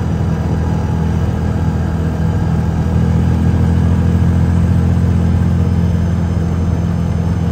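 A vehicle's engine running steadily while driving, a low hum that grows a little louder about three seconds in.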